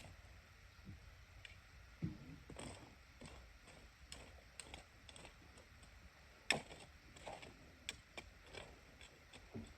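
Faint, irregular light clicks and taps at no steady rhythm, with one sharper tap about six and a half seconds in.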